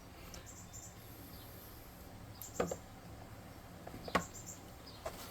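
Faint high bird chirps in short runs of three or four, repeating through the quiet, with two sharp clicks about a second and a half apart in the middle.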